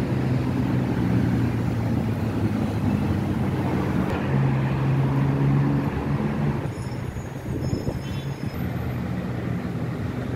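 Road traffic on a busy multi-lane boulevard below, heard as a steady wash of vehicles with a low engine hum that eases off about two-thirds of the way through.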